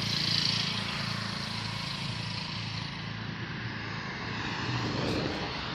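An engine running steadily: a low, even drone with a hiss over it.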